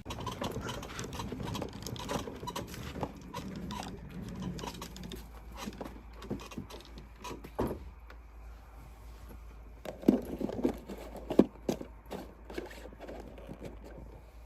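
Footsteps of someone walking at an even pace, with light rustling, and a few louder knocks about ten to twelve seconds in.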